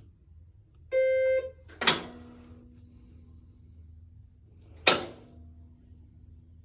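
Maytag front-load washer being started: a short electronic beep from the control panel, then a sharp click about two seconds in, followed by a low steady hum, and another click about five seconds in.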